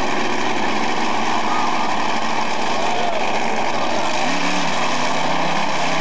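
Monster truck engines running loud, with a rev that rises in pitch about four seconds in, over a steady wash of noise.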